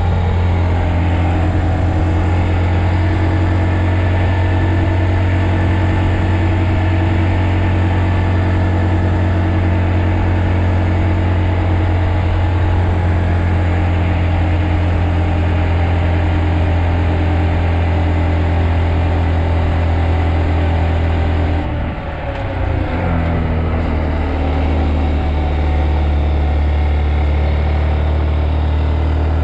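Honda Monkey's single-cylinder four-stroke engine running steadily under way. About three-quarters of the way through its note briefly drops in level and pitch, then picks up again at a changed pitch.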